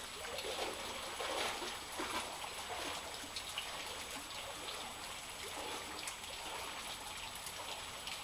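Shallow floodwater trickling and flowing steadily, with soft sloshing in the first few seconds.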